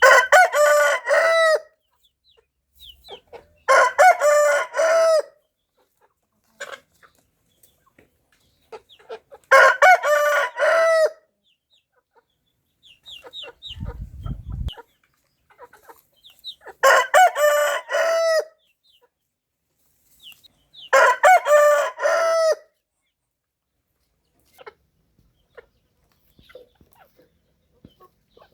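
Rooster crowing five times, each crow about a second and a half long, with soft clucks and short chirps in the gaps between crows.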